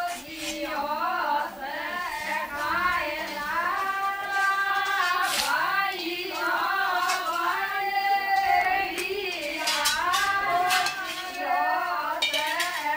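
High-pitched voices singing a wavering, ornamented melody without pause.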